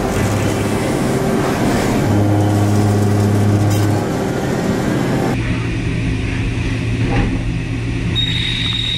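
A 3.2-inch indexable face mill on a CNC machine cutting 1045 steel at about 1,030 RPM: steady cutting noise with a low hum. About five seconds in, the sound changes abruptly to a 1.75-inch indexable drill boring into the workpiece, and a thin high whine comes in near the end.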